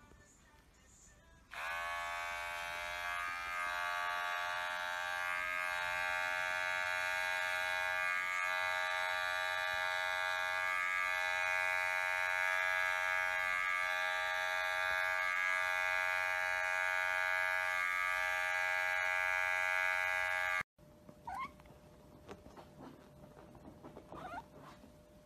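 Electric pet hair clipper trimming a cat's paw fur, a steady buzzing hum that switches on about a second and a half in and cuts off suddenly after about twenty seconds. A few faint short cat calls follow.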